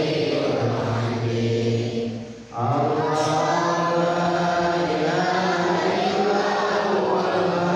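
A group of men chanting together in unison, Islamic devotional chanting. The voices break off briefly about two and a half seconds in, then resume.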